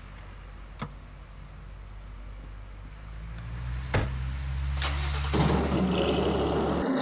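Sedan's engine running low and steady, with short sharp knocks about one, four and five seconds in, as of car doors shutting. About five seconds in the car moves off, and a louder rush of tyres over grass takes over.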